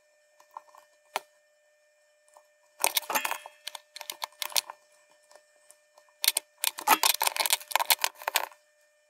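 Metal wire leads of loose LEDs clinking and rattling against each other and the circuit board as they are handled and fitted. Rapid clicking comes in two bouts, a short one about three seconds in and a longer one from about six to eight and a half seconds, with a single click about a second in.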